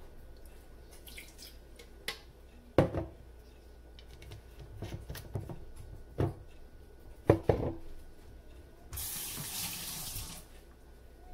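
Kitchen handling sounds: a bottle and cups knock and clatter on the counter several times, with two sharp knocks louder than the rest, about three and about seven seconds in. Near the end, water runs from a kitchen tap for about a second and a half.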